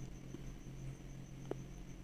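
Faint steady electrical hum with a thin high-pitched whine over it, and one small click about a second and a half in.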